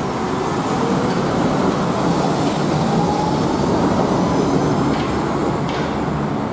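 Wuppertal Schwebebahn suspended monorail car running past close by, its steel wheels rumbling on the overhead rail, with a whine that rises in pitch over the first few seconds; loudest a couple of seconds in, easing off as it moves away.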